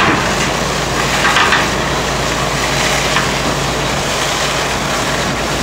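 A large engine, most likely a fire truck's, running steadily with a low hum, under a constant rushing noise.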